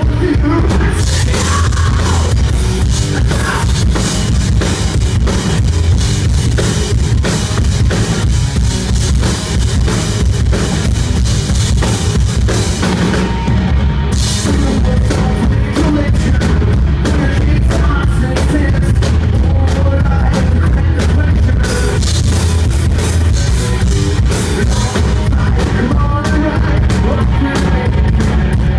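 A rock band playing live, drum kit and electric guitars loud and dense, heard from among the crowd. About halfway the cymbals drop out briefly, then a heavy hit brings the full kit back in.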